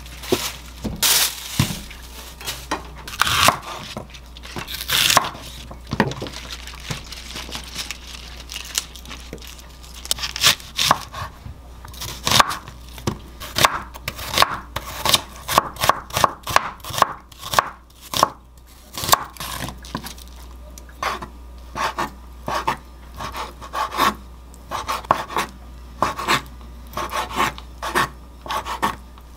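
Kitchen knife slicing onion and then chicken tenderloin on a wooden cutting board, the blade knocking on the board in quick runs of about two to three strokes a second. A few louder handling noises come in the first seconds.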